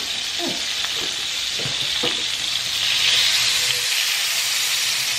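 Butter sizzling as it melts in a hot non-stick frying pan with leftover sucuk fat. The sizzle swells about three seconds in as the pan is tilted and swirled.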